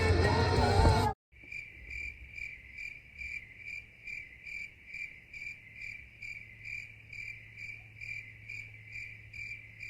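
Cricket chirping in an even, steady rhythm of about two to three chirps a second, after louder music and voices cut off abruptly about a second in.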